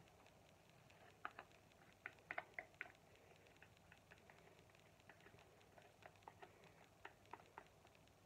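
Small sharp clicks and ticks of a clear plastic cup handled with gloved fingers on wet acrylic paint: one click, then a quick run of about five, then scattered softer ticks and a few more clicks near the end.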